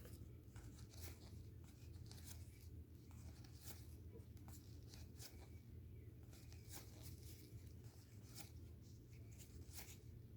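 Faint, irregular soft clicks and rustling of 2021 Panini Score football trading cards being flipped through and slid one behind another by hand, over a low steady room hum.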